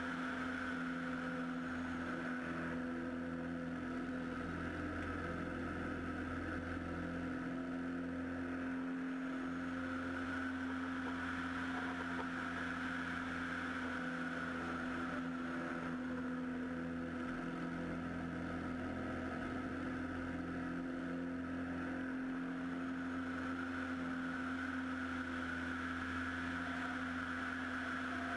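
A Super Decathlon's four-cylinder Lycoming engine and propeller droning steadily in flight, heard from a camera mounted outside on the wing, with a slight wavering in pitch.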